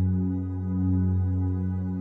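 Background music: sustained held tones over a steady low drone, swelling and easing gently.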